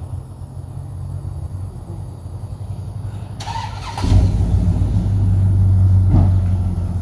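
Pickup truck engine running, then revving up and staying loud from about four seconds in, after a short rushing noise.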